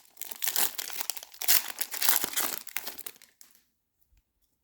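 Plastic wrapper of a football trading-card pack being torn open and crinkled for about three seconds, then it stops.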